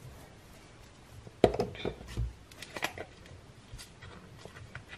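A few light clicks and knocks from a spice shaker being handled while onion powder is sprinkled over raw chicken pieces in a glass mixing bowl, the loudest knock about one and a half seconds in.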